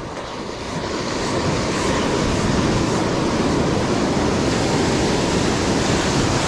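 Ocean surf breaking and washing up the shore close by, a steady rush of white water that grows louder over the first second or so and then holds.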